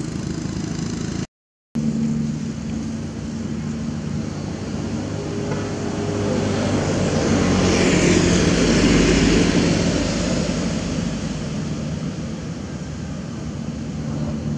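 A motor engine running steadily, growing louder to a peak about eight to nine seconds in and then fading, like a vehicle passing by. The sound cuts out completely for a moment just over a second in.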